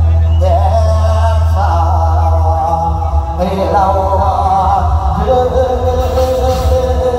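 Mor lam singing: a male voice sings a gliding, ornamented Isan melody through the stage PA over amplified backing music with a heavy, steady bass. About five seconds in, the melody settles into one long held note.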